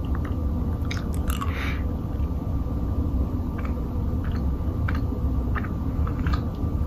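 A person chewing a jelly bean, heard as scattered small, wet mouth clicks over a steady low hum.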